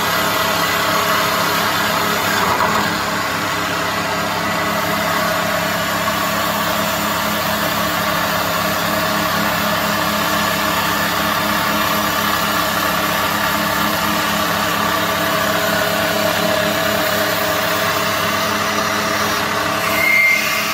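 Small automatic CNC wood-turning lathe running: a steady mechanical hum with several steady tones, and a brief louder sound near the end.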